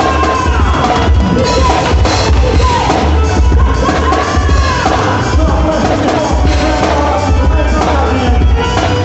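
Loud amplified quadrilha dance music: a heavy, regular bass beat under a melody line that glides around in the middle range.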